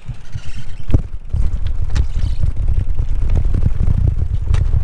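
Wind buffeting the microphone while riding a gravel bike: a loud, rough low rumble with a few sharp knocks from the bike over the track.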